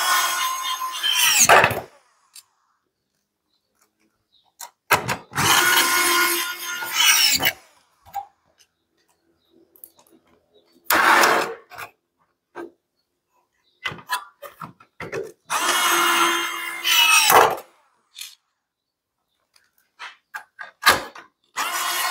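Cordless electric screwdriver driving Phillips wood screws, in four runs of about two seconds each and a fifth starting near the end. Its motor whine holds steady, then sags in pitch as each screw seats, with small handling clicks between runs.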